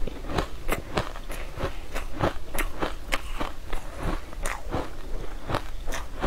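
Close-miked crunching and chewing of a crunchy green powdery sweet, with sharp crunches about three or four times a second.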